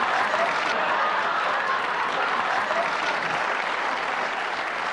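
Sitcom audience applause, a steady mass of clapping with a few voices in it, slowly tapering off.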